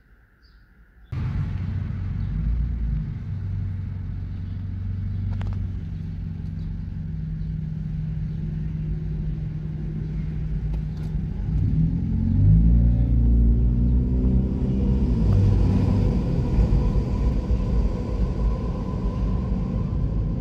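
Car engine and road noise heard from inside the cabin while driving: a steady low drone that starts suddenly about a second in. The engine pitch rises and shifts as the car speeds up about twelve seconds in.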